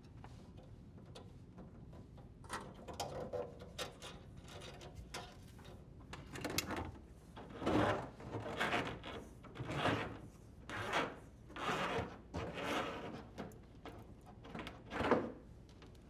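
Corrugated plastic dishwasher drain hose dragged through the hole in the cabinet wall: a series of short scraping, rubbing pulls, coming about once a second and louder in the second half.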